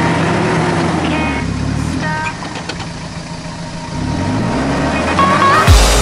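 Toyota Hilux Surf's engine working the four-wheel drive up a steep rutted dirt climb, revs rising and easing off, dropping quieter for a moment mid-way before picking up again. Heavy bass-driven electronic music cuts in near the end.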